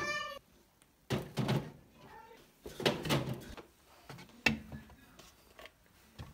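A brief high-pitched squeal at the very start, then a series of separate knocks and thuds every second or so, like household items being handled and set down.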